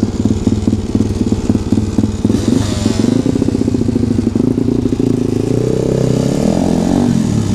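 Small motorcycle engines idling with a lumpy, pulsing beat, then revving up and pulling away, the pitch rising for a couple of seconds before dropping suddenly at a gear change near the end. The rider's own bike still has an oversized carburettor jet, which he says makes it run rich, bog and hang on the revs.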